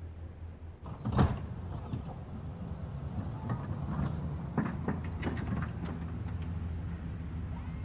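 Plow truck's engine running low and steady while the snowplow blade works the driveway, with a loud clunk about a second in and several lighter knocks over the following seconds.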